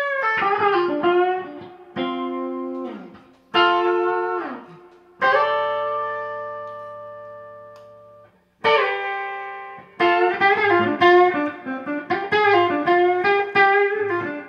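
Electric guitar played through an amp: picked chords and single notes, some sliding down in pitch. One chord is left to ring and fade for about three seconds midway, then after a brief gap comes a quicker run of notes.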